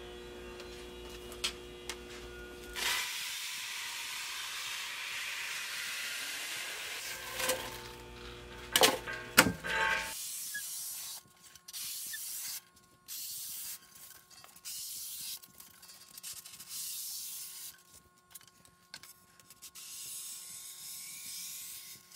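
Polystyrene foam rubbing and sliding across a plywood board under the hands, a rough hiss, with two sharp knocks about nine seconds in. After that, fainter rustling of the foam in short spells.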